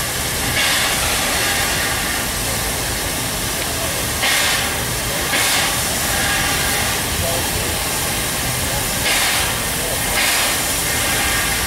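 Standing AD60-class Beyer-Garratt steam locomotive 6029 hissing steam steadily, with brief louder bursts of hiss that come mostly in pairs about a second apart, every four to five seconds.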